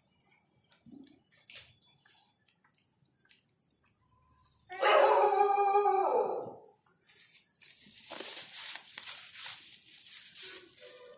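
A dog gives one loud, drawn-out whining cry lasting about two seconds, about five seconds in, its pitch dropping at the end; a few seconds of softer breathy hissing follow.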